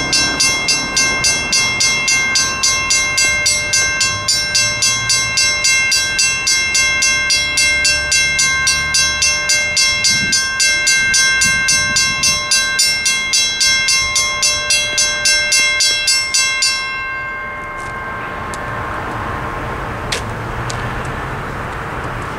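Western-Cullen-Hayes mechanical crossing bell on a railroad crossing signal ringing in rapid, even strokes, then cutting off abruptly about seventeen seconds in as the signal shuts down. After that only a steady background hiss remains.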